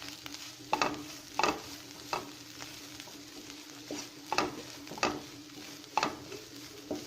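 Spatula scraping and stirring a chicken-and-onion masala as it fries in a pan, about one stroke a second over a steady sizzle. The spices are being roasted until their raw smell is gone.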